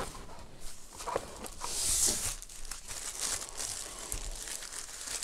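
Thin frosted plastic bag crinkling and rustling as it is handled and a speaker is slid out of it, with a louder rustling swish about two seconds in.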